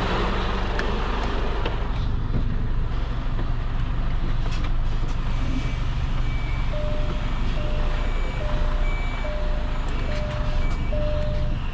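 Diesel engine of a truck tractor unit running steadily. From about five seconds in, a short electronic beep repeats about one and a half times a second over the engine.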